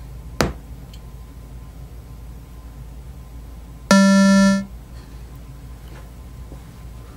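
A sharp click about half a second in, then about four seconds in a single loud, buzzy, steady-pitched beep of under a second from the Williams WPC pinball sound board: its power-up self-test tone, reporting the result of the self-test.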